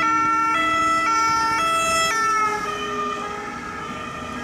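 French two-tone ambulance siren alternating between its two notes, each held about half a second. About two seconds in, both notes slide lower and the siren grows quieter as the ambulance passes and moves away: the Doppler effect.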